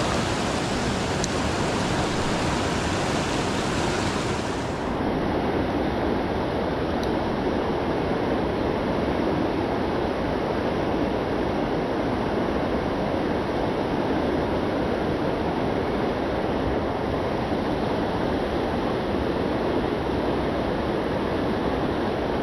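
Steady rush of a flowing river; the higher hiss drops away suddenly about five seconds in.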